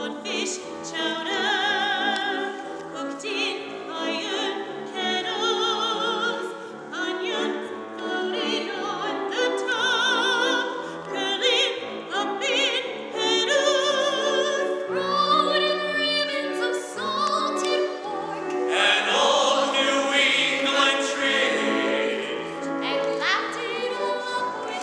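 Stage-musical singing with a strong vibrato on the held notes, over instrumental accompaniment; the music swells louder about three-quarters of the way through.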